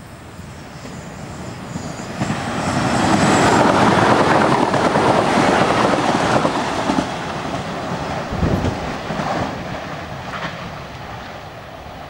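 Tangara double-deck electric train, set T65, passing at speed without stopping. It grows louder over the first few seconds, is loudest as the cars go by, then fades, with a few knocks from the wheels on the track.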